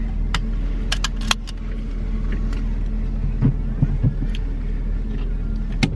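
Steady low drone of a car's engine and road noise heard from inside the cabin while driving, with a few sharp clicks and some soft low thumps.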